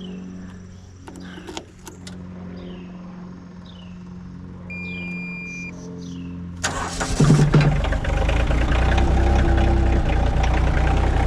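A mini skid steer's engine cranks and catches about two-thirds of the way in, then settles into a steady cold-start idle while warming up. Before it starts, a bird chirps several times with short falling notes, and there are a few clicks.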